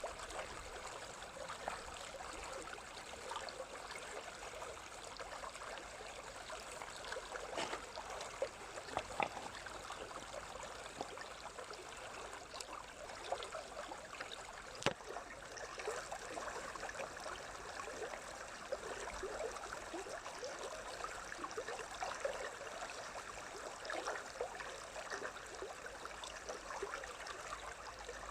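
Water flowing in a stream, a steady babble with many small splashes and gurgles.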